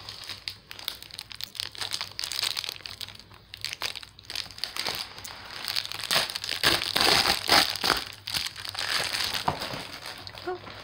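Plastic bubble mailer crinkling and rustling as it is handled and pulled at by hand to open it, loudest a little past the middle.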